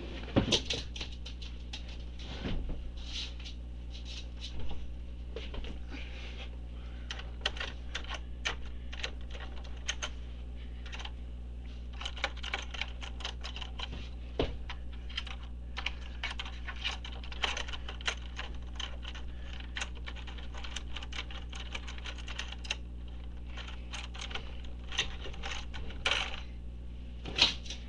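Computer keyboard keys clicking and clattering in irregular clusters as a dog paws at them, over a steady low hum.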